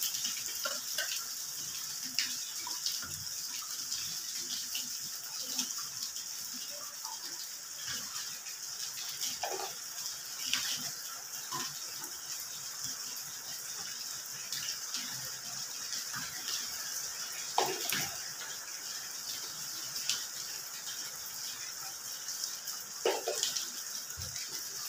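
Shallots being peeled by hand: small, scattered clicks and scrapes of skins and fingers, over a steady hiss. Three short squeaks are heard, about ten seconds in, about eighteen seconds in, and near the end.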